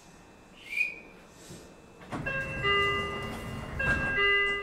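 Meitetsu 9500 series electric train running, heard on board: a low rumble of wheels on rail swells about two seconds in, with several steady whining tones over it that drop out briefly and return near the end. A short high squeal sounds just under a second in.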